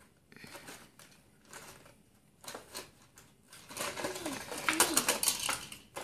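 Plastic blister packaging and cardboard crinkling and clicking as a toy is worked out of its box, in short bursts that grow busier and louder in the second half. A child makes a couple of short vocal sounds partway through.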